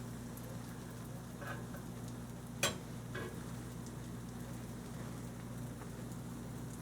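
Grilled cheese sandwich frying in butter on a cast iron griddle: a soft, steady sizzle with a few light crackles and one sharp tick about two and a half seconds in, over a steady low hum.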